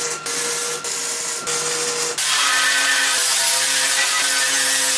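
Wire-feed (MIG) welder crackling in four short bursts as a steel end cap is welded on, then from about two seconds in an angle grinder runs steadily against the steel.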